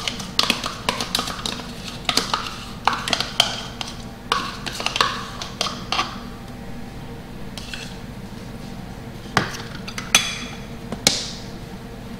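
Spoon scooping yogurt out of a small plastic cup and tapping against the cup and a glass mixing bowl: a quick run of clicks and taps for about the first half, then a few louder knocks near the end, two of them with a short ring.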